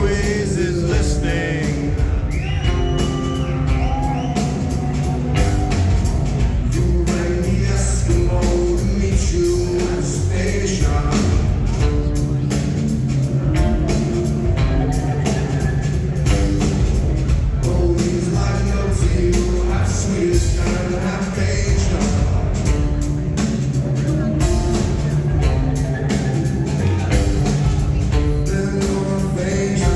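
A rock band playing the song live, with a male voice singing over a heavy bass line and a steady drum beat.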